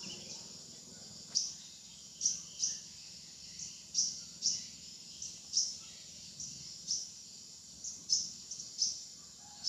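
Repeated short, high-pitched animal chirps from birds or insects, irregularly spaced at about two a second, over a faint steady high hum.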